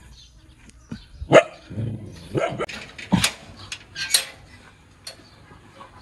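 A dog barking a few times, short sharp barks between about one and four seconds in.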